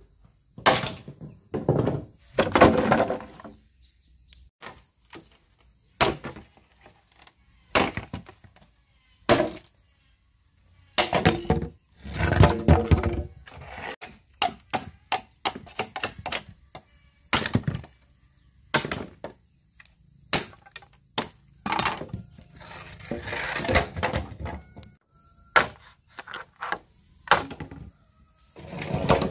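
An irregular series of sharp knocks, cracks and thuds, most single strikes a second or two apart, with a few longer rattling clusters of about a second each; there are short lulls around a third of the way in and again near the end.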